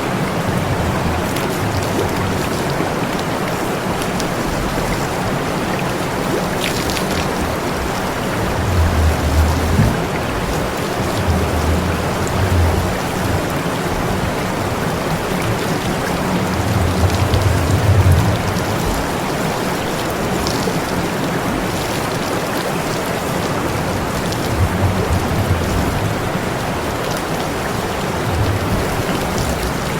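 Steady hiss of spraying water that keeps going throughout, with low rumbling swells every few seconds.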